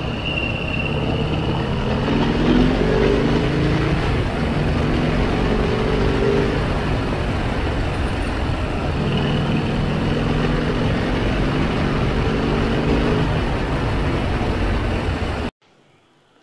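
Harley-Davidson Heritage V-twin running under way with wind noise on the fender-mounted microphone; the engine note climbs and drops as the rider works the throttle. The sound cuts off suddenly near the end.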